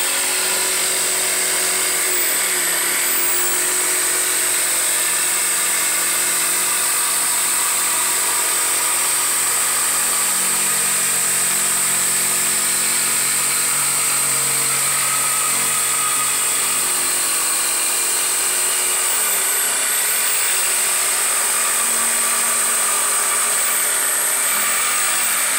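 Corded Ridgid jigsaw running steadily at full speed, its blade cutting through a wooden panel with a continuous high whine.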